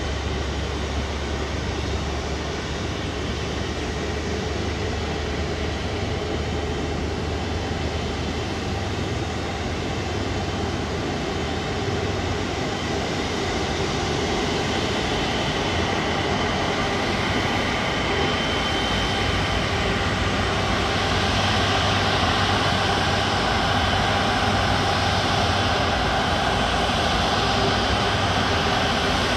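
Airbus Beluga XL's twin Rolls-Royce Trent 700 jet engines running at taxi power: a steady rumble with a high whine, growing louder over the second half as the aircraft comes nearer.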